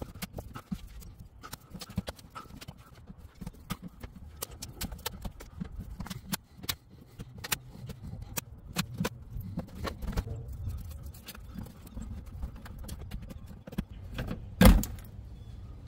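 Plastic push clips on the underside of a car's bumper cover being pried and pulled out with a flathead screwdriver and needle-nose pliers: scattered small clicks and taps, with one louder knock near the end.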